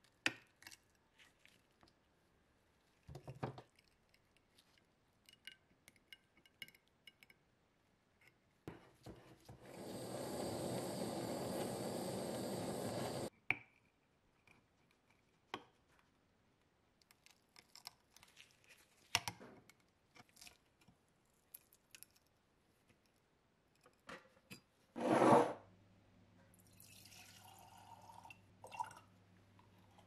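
Scattered small clicks and taps from work on a rusted Zippo lighter held in a vise, with a steady hiss of about four seconds in the middle that cuts off sharply. About 25 seconds in comes one loud knock, followed by a faint low hum.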